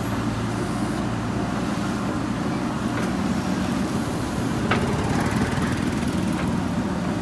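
JCB backhoe loader's diesel engine running steadily while digging, with one sharp knock about two-thirds of the way through.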